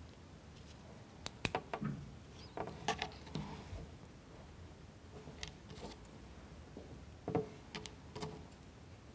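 Scattered light clicks and taps of small laser-cut plywood parts as they are handled, rubbed with a block of wax and set down on a cutting mat.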